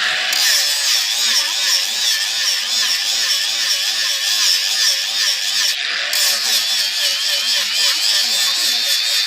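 Electric grinder running against the steel of a katari blade, a loud steady whine that wavers up and down in pitch.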